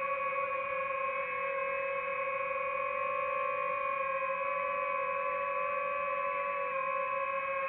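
DJI FPV drone's motors and propellers whining steadily in flight, a high-pitched hum that wavers only slightly in pitch.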